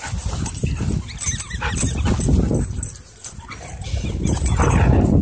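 Siberian huskies vocalizing as they chase and wrestle, with short rising and falling cries about a second in and again near the end, over a steady low rumble.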